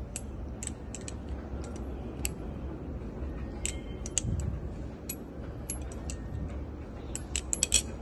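MXNIUM Raid balisong being flipped: sharp metallic clicks as the handles and blade swing on their pivots and strike each other, scattered irregularly through the tricks, then a quick run of louder clicks near the end as the knife is snapped closed.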